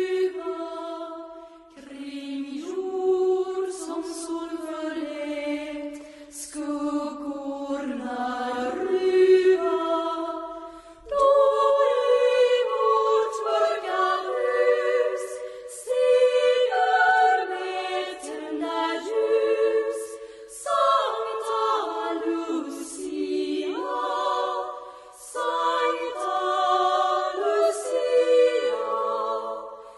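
A choir of girls' voices singing a Lucia song unaccompanied, in sustained phrases with short breaths between them.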